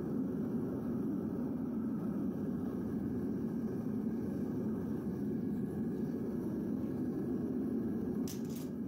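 Devil Forge propane furnace burner running, a steady low rumble, while it heats a crucible of copper to melting. A couple of quick sharp clicks near the end.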